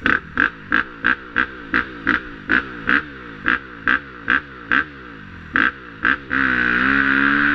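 KTM 250 EXC-F single-cylinder four-stroke dirt bike engine pulsing in short rhythmic bursts, about three a second. About six seconds in it changes to continuous running with its pitch wavering.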